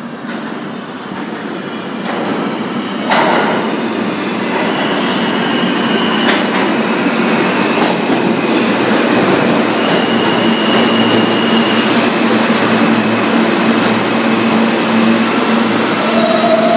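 An R160 subway train pulls into the station, its wheels rumbling and clattering on the rails and growing louder as it comes alongside. There is a sharp clank about three seconds in and brief high squeals of the wheels, then a steady hum as the train slows.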